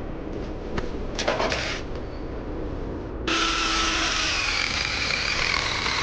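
Electric angle grinder test-run after repair: a few handling clicks, then about three seconds in the motor is switched on and runs steadily at speed with a high whine.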